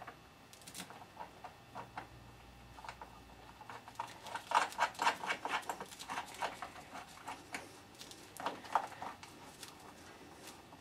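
Light metallic clicks and scrapes of a nut and spring washer being fitted by hand onto a washing machine motor's tensioning bolt, with gloved fingers rubbing on the bracket. The clicks come in irregular runs, thickest in the middle and again a little before the end.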